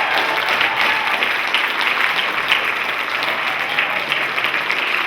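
Live theatre audience applauding, a steady mass of clapping hands.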